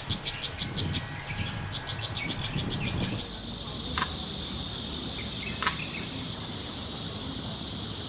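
Outdoor background of calling insects with a few birds: a fast, high pulsing buzz of about ten pulses a second, broken briefly near one second, then from about three seconds a steady high insect hiss with a few short, sharp chirps.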